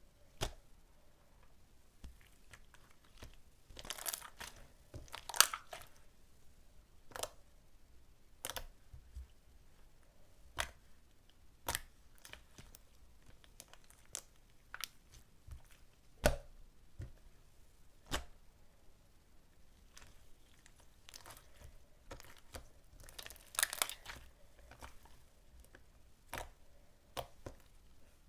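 Hands playing with a mixed slime, making scattered sharp pops and clicks every second or two. Two longer crackling runs come a few seconds in and again about three-quarters of the way through.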